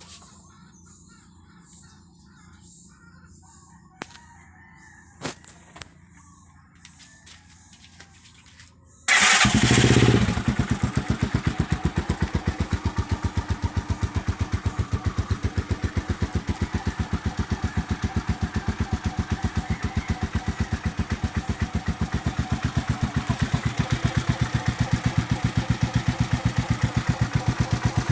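For about nine seconds there are only birds chirping and a few sharp clicks. Then the stock Rusi TC150's single-cylinder engine starts with a loud burst and settles into a steady, evenly pulsing idle, which gets slightly louder near the end.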